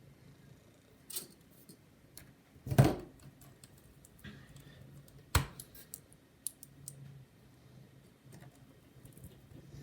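Small scattered clicks and taps of screws and a precision screwdriver being handled on a laptop's case, with a louder knock about three seconds in and a sharp click about five and a half seconds in.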